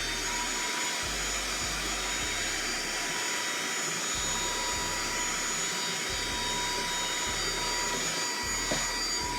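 Saker 3-in-1 cordless mini handheld vacuum running steadily: a high motor whine over rushing air, settling at full speed just after the start.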